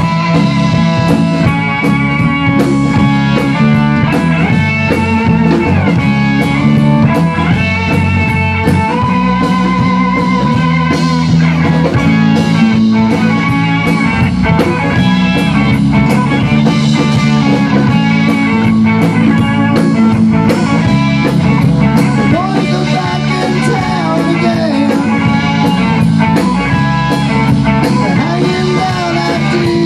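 Rock band playing live: electric guitar taking lead lines with bent notes over bass guitar and a drum kit, with cymbals struck in a steady beat.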